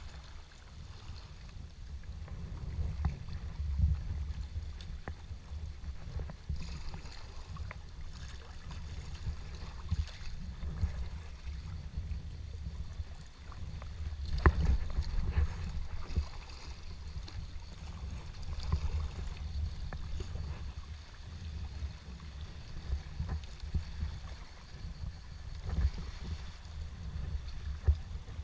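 Seawater splashing and lapping around a Prijon Seayak sea kayak as it moves, with scattered small clicks over a steady low rumble. A sharp knock about fourteen seconds in is the loudest moment.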